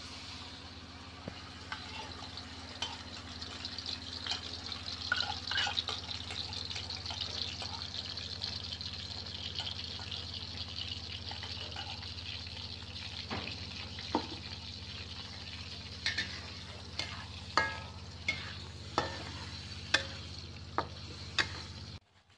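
Ground chili paste sizzling in hot oil in a steel wok: a steady frying hiss, with sharp clicks scattered through it that come more often in the second half. The sound cuts off suddenly just before the end.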